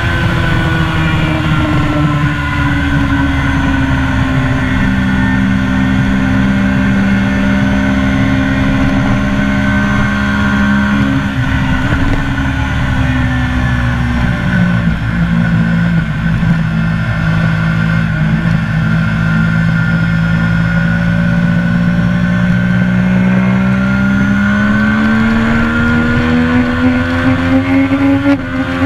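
A Triumph sports motorcycle's engine under way, recorded on board with constant wind rush. The revs hold fairly steady through long bends, settle lower through the middle, then climb over the last few seconds until a brief break near the end.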